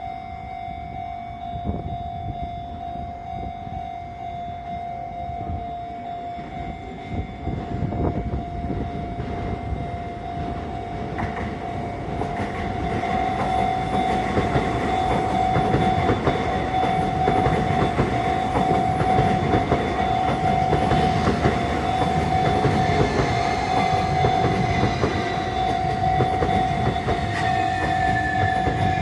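Japanese railway level-crossing alarm ringing steadily while a Sotetsu train comes through, the rumble and clatter of the train swelling about twelve seconds in and staying loud. Near the end a tone glides downward over the train noise.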